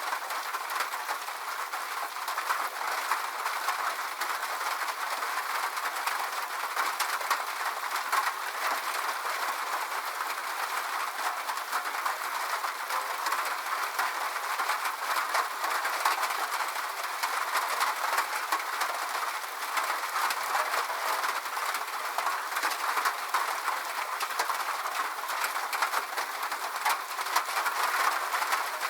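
Rain falling on a metal roof: a steady, dense patter of countless small drop impacts, with no low rumble.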